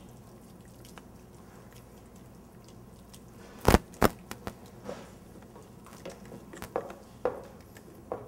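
Wooden spoon stirring thick risotto in a stainless-steel saucepan, with soft squelching. About halfway through come two sharp knocks, then lighter taps and clicks of the spoon.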